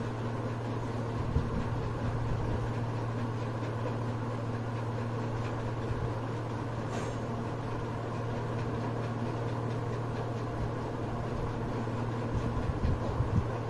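Steady low electrical or mechanical hum with even background room noise, and a few soft handling bumps near the end.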